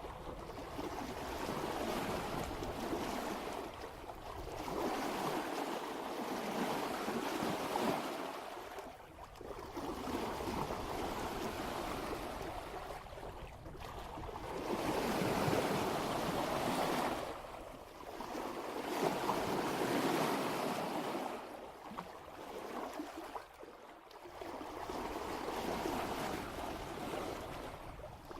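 Water rushing and splashing past a sailboat's hull as it sails before a light following wind, swelling and easing about every four seconds.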